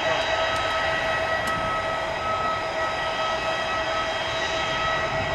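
Airbus A340-600's four Rolls-Royce Trent 500 turbofans running at low power as the airliner rolls slowly along the runway after landing: a steady roar with a high, steady whine.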